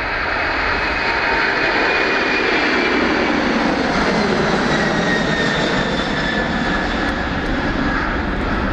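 Boeing 747-400 freighter's four jet engines at takeoff thrust as it climbs away just after liftoff: a loud, steady rumble with high whining tones slowly falling in pitch.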